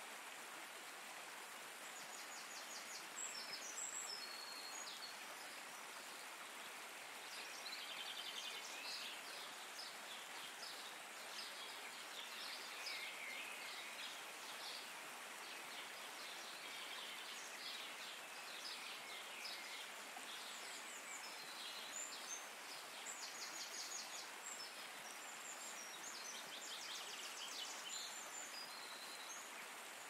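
Steady rush of flowing water, with small birds chirping and giving fast trills over it again and again.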